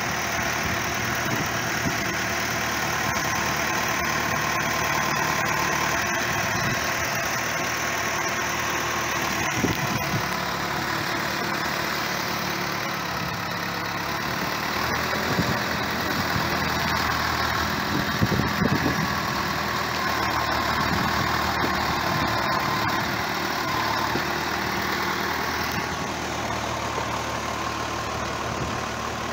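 Diesel engine of a telehandler running steadily at low revs.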